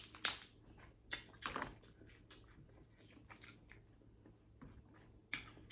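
Close-miked chewing and wet mouth clicks from eating seafood boil, with a few louder bursts just after the start, about a second and a half in, and near the end.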